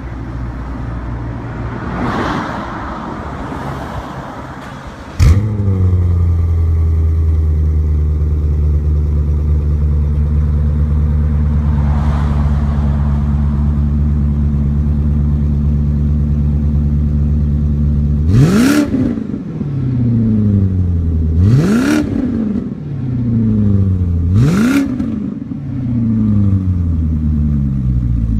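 BMW M6 with an aftermarket Fi Exhaust (catless downpipes, X-pipe, valved rear muffler, valve closed) starting up with a loud flare about five seconds in, then idling steadily. Near the end it is blipped three times, each rev rising quickly and falling back, about three seconds apart.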